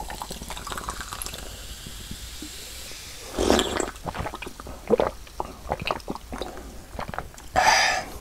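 Pepsi poured from a can into a glass mug, with a steady fizzing hiss for about three seconds. Louder drinking sounds follow, swallows and sips, with a loud breath near the end.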